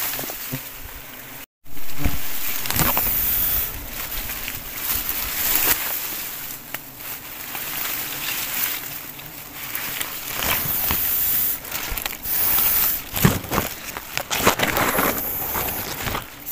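Tall grass and leaves rustling and brushing against the camera as someone pushes through dense vegetation on foot, in irregular swishes and crackles. The sound cuts out completely for a moment about a second and a half in.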